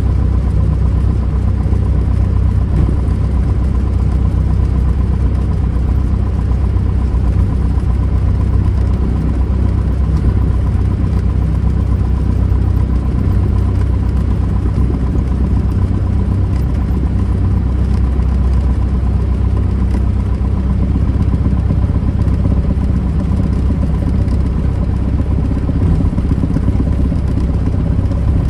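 Single-engine piston airplane's engine and propeller running steadily at low taxi power, heard from inside the cockpit as an even low rumble with a faint thin steady whine above it.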